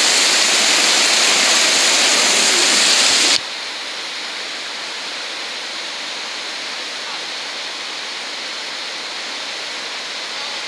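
Whitewater rapids rushing loudly close up, then cutting off suddenly a little over three seconds in to a quieter, steady rush of the rapids.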